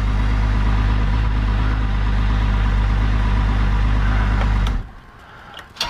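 Evinrude E-TEC 300 two-stroke outboard idling steadily, then shut off about five seconds in; a short click follows near the end.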